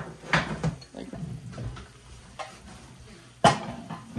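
Kitchen clatter: scattered soft knocks and one sharp knock about three and a half seconds in, over a low steady hum.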